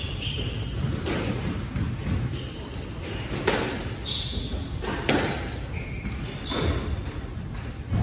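Squash rally: the ball hits rackets and walls with sharp knocks about every second, while sneakers squeak on the wooden court floor.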